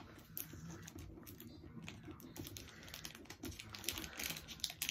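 Faint, scattered light clicks and rustles of small packaging being handled as little hair barrettes are worked out of their holder.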